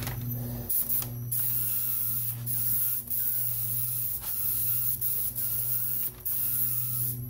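Compressed-air touch-up spray gun hissing as it sprays kandy paint. It goes in passes of one to two seconds with short breaks where the trigger is let off, over a steady low hum.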